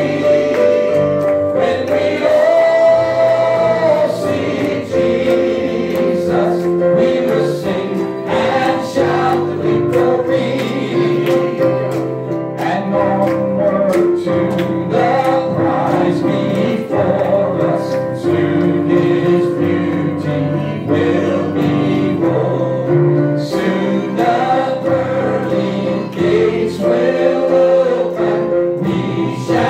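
Church worship music: a group of voices singing a gospel song together over instrumental accompaniment, with held notes over a bass line that moves in steps.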